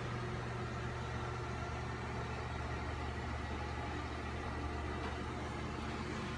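Steady low mechanical hum of a motor running, level and unchanging throughout.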